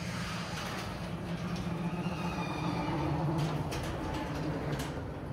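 A motorized sectional garage door closing: the opener motor drones steadily while the door panels roll down their tracks, with faint clicks along the way.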